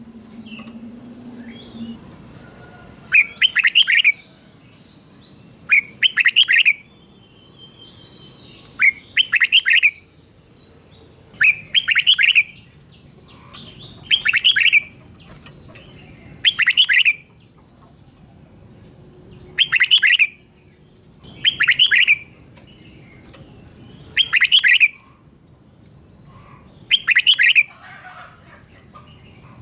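Red-whiskered bulbul singing its doubled ('bern') song, a short two-part phrase repeated about every two and a half seconds, about ten times.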